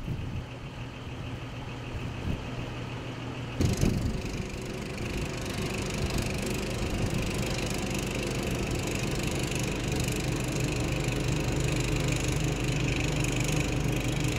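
An engine running steadily, with a sudden change in the sound a few seconds in.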